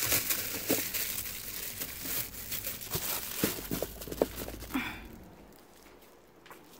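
Plastic bag crinkling and rustling as it is handled, with a few light clicks and knocks of plastic; the rustling dies down about five seconds in.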